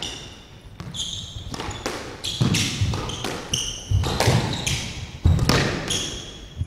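Squash rally: the ball cracking off rackets and the walls at irregular intervals, with short high squeaks of court shoes on the wooden floor as the players move and lunge.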